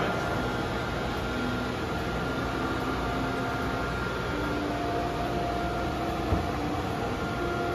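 Steady whirring hum of convenience-store kitchen equipment and its fans, with a few faint steady tones over it. A single soft thump comes about six seconds in.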